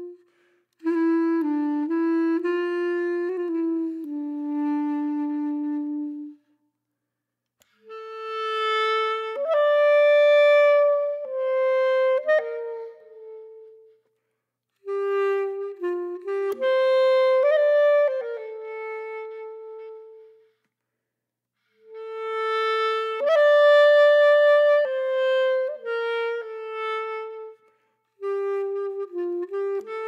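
Background music: a solo woodwind instrument playing a slow unaccompanied melody in phrases of a few seconds, separated by short silences.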